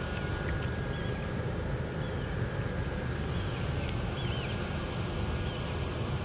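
Wind buffeting the microphone in a steady low rumble, with a few faint, high bird chirps scattered through it.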